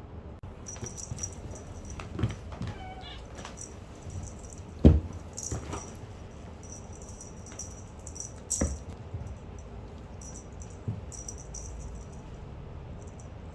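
A kitten meows once, briefly, about three seconds in, among light knocks and thumps, the loudest about five seconds in, and an on-and-off high-pitched rattle.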